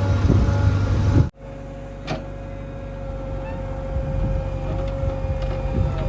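Diesel engine of a JCB 3DX backhoe loader running steadily. It cuts off abruptly a little over a second in and resumes at a lower level with a steady whine, and there is a single sharp clack about two seconds in.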